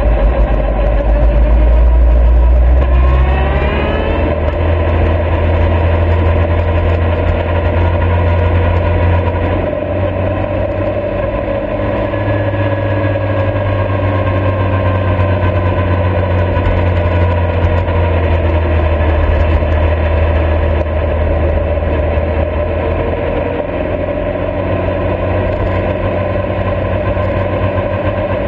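Motorcycle engine running under way: its pitch rises quickly as it accelerates about three seconds in, then it holds a steady cruise with the pitch slowly falling.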